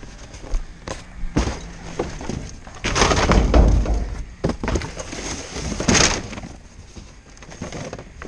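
Junk being rummaged through by hand in a steel roll-off dumpster: cardboard boxes and picture frames shifted and tossed, with a run of clattering and knocks, loudest about three seconds in and again around six seconds.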